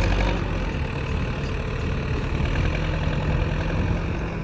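Escorts Digmax-2 backhoe loader's Kirloskar diesel engine running steadily.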